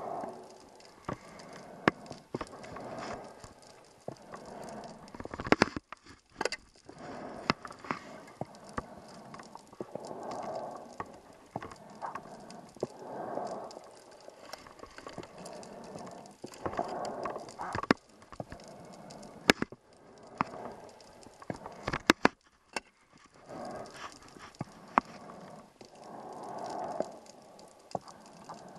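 Scuba diver breathing through a regulator underwater: exhaled bubbles gurgling in swells about every three seconds, with scattered sharp clicks.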